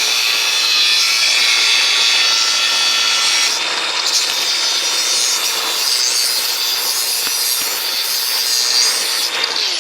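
TIG welding arc on steel, a steady loud hiss and buzz while tacking a plate onto a motorcycle fuel tank, cutting off sharply as the arc is broken.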